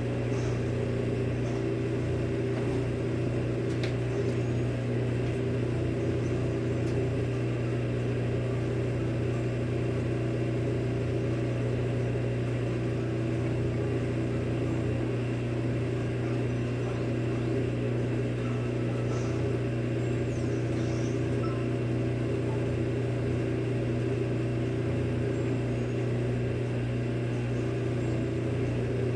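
Samsung front-loading washing machine running through its spin cycle: a steady motor and drum hum with no knocking.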